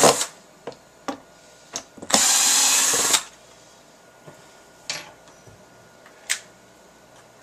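Handheld power drill running a screw into a wooden board in a burst of about a second, after a short run that stops right at the start, with a few light knocks and clicks around it.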